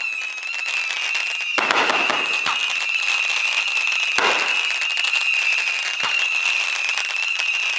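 Aerial fireworks going off: several sharp bangs, the loudest about four seconds in, some trailed by a short crackle, over a steady high-pitched tone.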